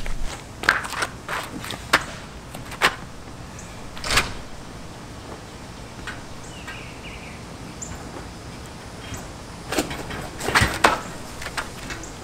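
Sharp metal knocks and clunks as a steel basketball-hoop post's mounting plate is lowered onto the anchor bolts of a concrete base: a few single knocks in the first seconds, then a quick run of them near the end.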